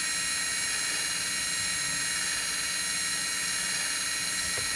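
Electric parking brake actuator motor of a 2016 Lexus RX350 running steadily as it winds the rear caliper piston all the way back for brake service mode, heard as an even high whine with hiss.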